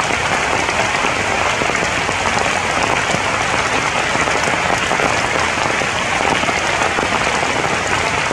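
Steady rain falling on the broad leaves of the tree canopy, an even, unbroken hiss of drops.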